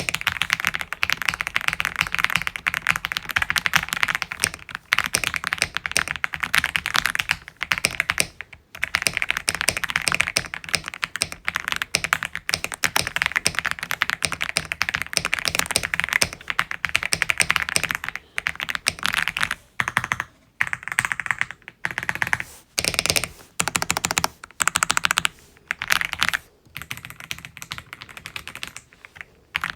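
Typing on an Aula F75 Pro mechanical keyboard: a fast, steady run of key clicks as a switch sound test. After about twenty seconds the typing breaks into short runs of keystrokes with pauses between them.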